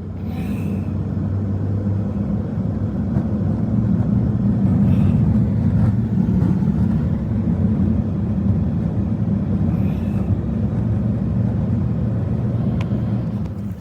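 A steady low engine drone, as of a motor vehicle running, with a constant hum. It sets in suddenly and cuts off suddenly.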